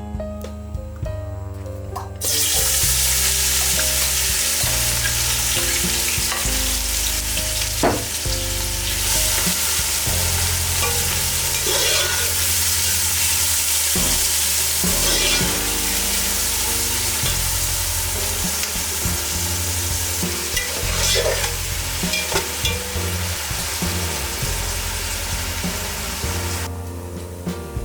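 Food sizzling in hot oil in a frying pan, with a few knocks of a utensil as it is stirred. The sizzle starts about two seconds in and stops near the end.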